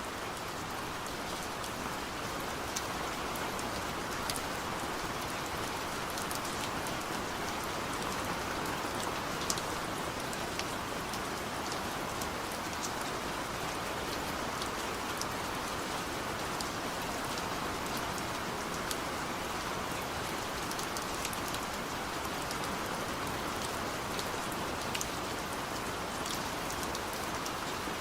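Steady rain falling, an even hiss with scattered sharp drop ticks on a surface.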